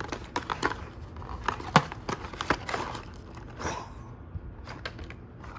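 Product box for an electric pet nail grinder being opened and handled: crinkling and tearing of packaging with scattered sharp clicks and taps, one louder tap a little under two seconds in.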